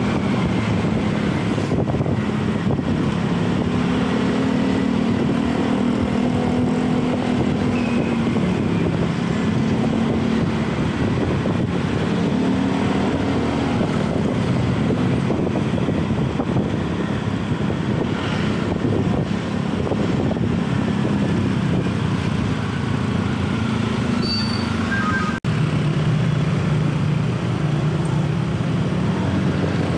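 Motorcycle engine running under way, its pitch rising and falling with the throttle, with wind rush on the microphone and street traffic around.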